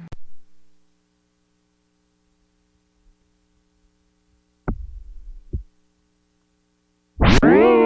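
A few handling thumps as the audio adapter is connected. Then near silence with a faint steady mains hum, and two low thumps about five seconds in. Near the end, loud electronic music from a DJ mixer cuts in, opening on a chord that slides up in pitch.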